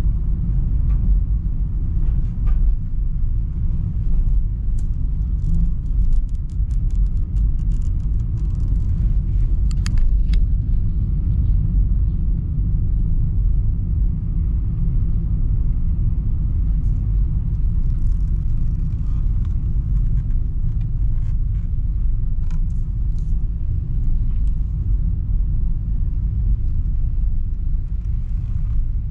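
Steady low rumble of road and engine noise inside a moving car's cabin, with a run of faint light ticks a few seconds in.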